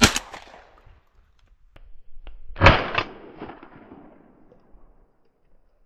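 Semi-automatic shotgun firing twice, one shot right at the start and a louder one about two and a half seconds later, each followed by a rolling echo that fades out.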